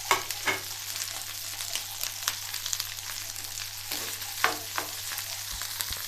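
Cooked rice sizzling in hot ghee in a pan as it is stirred with a steel spoon, a steady crackling fry with the spoon clicking and scraping against the pan several times.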